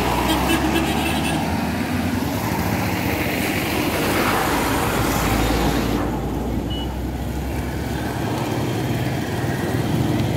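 Heavy vehicle engines of road-paving machinery and trucks running steadily, a continuous low rumble with traffic noise over it.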